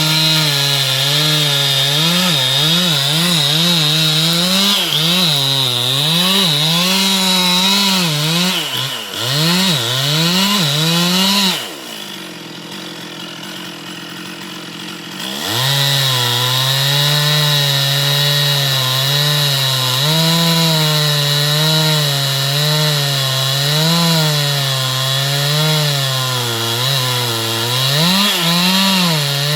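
Chainsaw cutting wood, its engine pitch rising and falling under load. About twelve seconds in it drops back to a quieter idle for a few seconds, then revs up again and cuts steadily.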